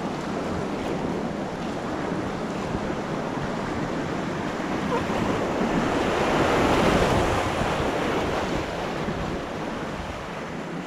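Whitewater rapid rushing and churning around an inflatable packraft as it runs the rapid, growing louder about halfway through as the raft drops into the foaming chute, then easing.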